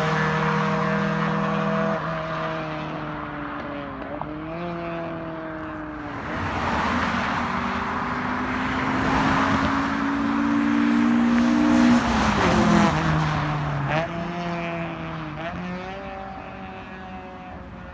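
Honda Civic hatchback with a naturally aspirated, high-compression non-VTEC B20B four-cylinder, breathing through a 4-2-1 header and Fujitsubo exhaust, accelerating hard through the gears. The engine note climbs and drops sharply at each upshift, several times, is loudest about twelve seconds in and fades toward the end.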